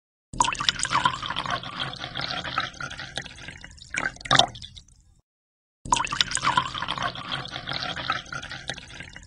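Stream of water pouring and splashing into an empty glass aquarium tank as it fills, with two louder splashes about four seconds in. The pouring stops abruptly about five seconds in and starts again half a second later.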